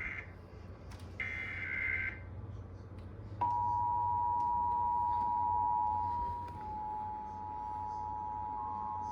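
Emergency Alert System broadcast tones: the last of the three SAME header data bursts, a brief warbling electronic screech, then after a short gap about a third of the way in, the EAS two-tone attention signal starts and holds as a steady, harsh dual tone.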